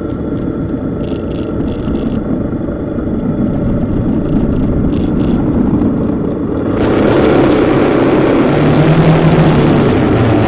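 Motorcycle engine running under way, with rumbling road and wind noise, picked up by the bike-mounted camera's microphone. About seven seconds in the sound turns brighter and a little louder.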